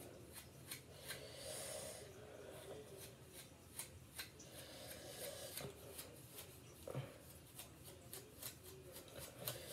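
A hair pick raking through short, coarse hair: faint scratchy strokes at uneven intervals, about two or three a second.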